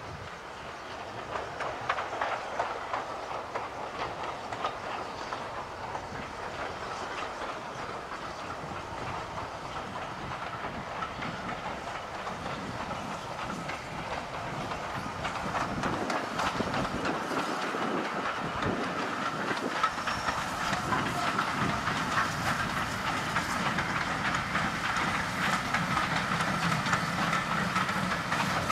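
Steam-hauled train rolling along the rails behind GER Y14 0-6-0 No. 564, its wheels clicking over the rail joints with a steady hiss, growing steadily louder as it comes closer.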